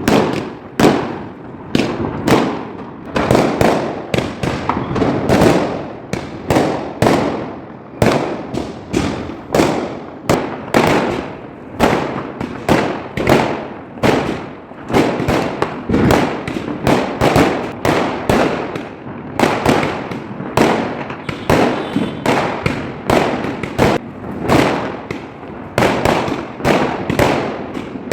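Firecrackers and fireworks bursting continuously, a rapid string of sharp bangs, several a second, with echoes trailing between them.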